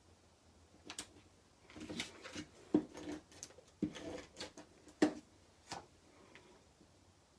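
Paper and cardstock pieces being handled and set down on a work table: an uneven run of light taps and rustles, the sharpest taps about three, four and five seconds in.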